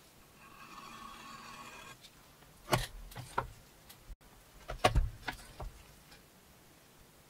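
A hand tool scrapes steadily along a leather edge, shaving off thin curls. After that come a handful of sharp clicks and knocks from a benchtop press as it cuts a rounded corner in a leather panel.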